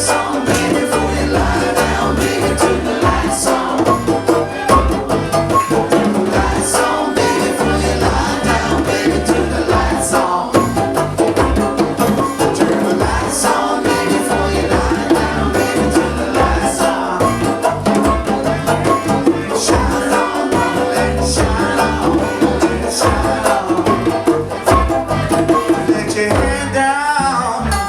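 Live band playing an acoustic set, with a pulsing bass line and steady drums under the other instruments.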